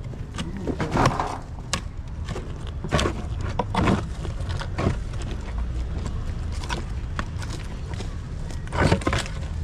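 Scattered knocks and clatters, irregular, over a steady low rumble, with louder knocks about a second in, a few seconds in and again near the end.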